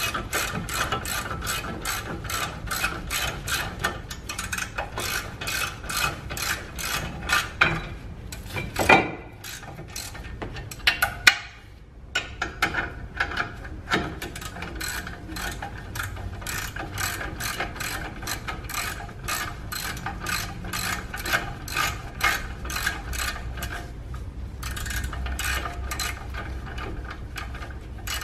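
Hand ratchet wrench clicking in quick, even strokes, about three clicks a second, as the brake caliper bolts are run in. It breaks off briefly with a couple of louder knocks about nine to eleven seconds in, then clicks on.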